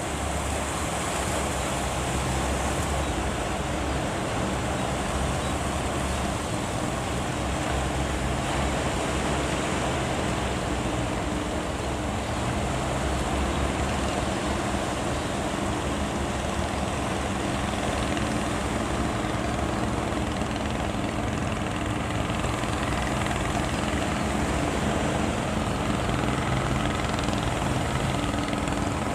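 Fishing boat engine running steadily, with a wash of wind and surf.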